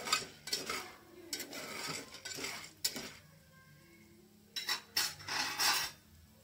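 Popcorn kernels being stirred in oil in an aluminium pot, the utensil scraping and clattering against the metal in two spells with a short pause between.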